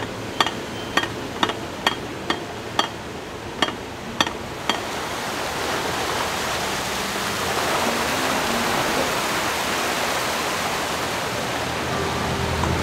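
A run of about ten sharp clicks, roughly two a second, then water rushing into a canal lock through the opened paddles, a steady rush that swells and holds.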